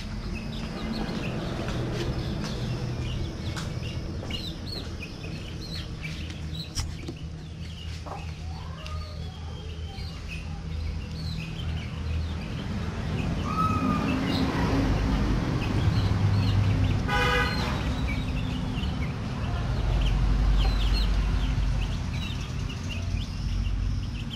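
Chickens: a hen clucking and chicks peeping in many short, high cheeps, over a steady low hum. A short horn-like toot sounds once, about two-thirds of the way through.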